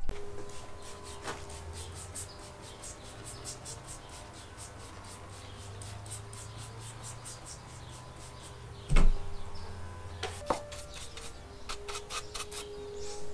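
Trigger spray bottle squirting cleaner onto a plastic coolant reservoir in quick repeated pumps, about three short hisses a second. A single solid thump comes about nine seconds in, and a few more quick squirts follow near the end.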